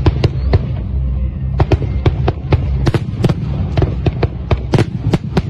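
Fireworks display: many sharp aerial shell bursts in quick, irregular succession, about three or four bangs a second, over a low steady hum.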